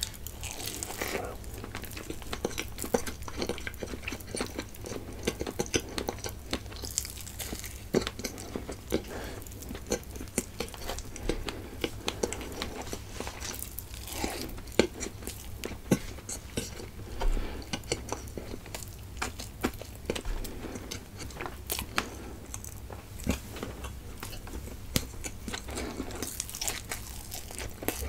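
A person biting and chewing khaman dhokla, with many short, irregular mouth clicks throughout.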